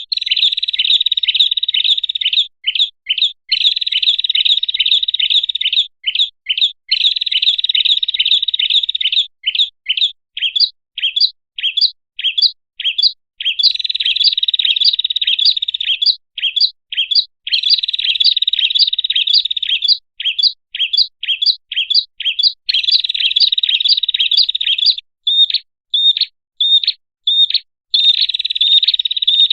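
Small songbird's lure call, the 'prenjak kepala merah' (red-headed prenjak), played as a trapping call. Loud, sharp, high chirps repeat two to three times a second and alternate with dense chattering runs of two to three seconds each.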